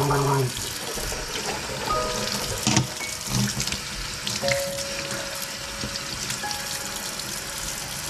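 Water running from a tap into a sink in a steady hiss, with a few soft music notes over it.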